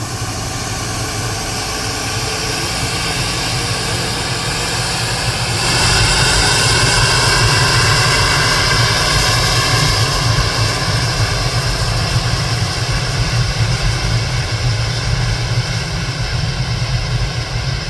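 Gulfstream business jet's twin jet engines whining steadily as it taxis and lines up on the runway, growing louder about six seconds in.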